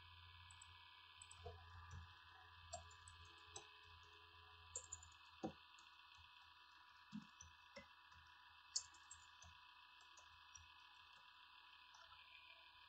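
Faint computer keyboard typing: scattered, irregular keystrokes as a short phrase is typed, over a steady low hum.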